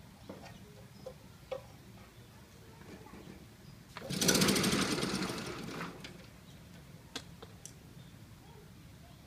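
Single-cylinder Briggs & Stratton Model 8 engine on a 1950s David Bradley walk-behind tractor being pull-started: one pull about four seconds in sets off a rapid mechanical clatter that fades out over about two seconds as the engine fails to keep running, a hard-starting engine after years of sitting. A few light clicks of handling the machine before and after.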